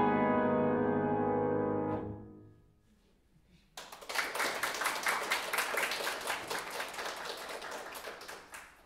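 A piano's final chord rings on and is released about two seconds in, ending a piece. After a short silence, a small audience breaks into applause, which fades out near the end.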